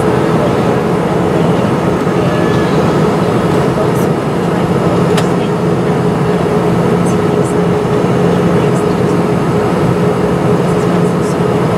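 Steady drone of an Airbus A320 cabin in flight: engine and airflow noise with a constant hum, broken only by a couple of faint clicks near the middle.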